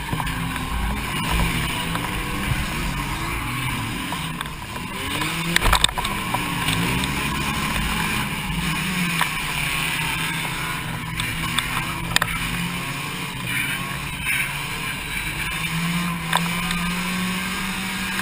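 Car engine revving up and down as the car is driven hard, heard from inside the cabin, with a few sharp knocks, the loudest about six seconds in.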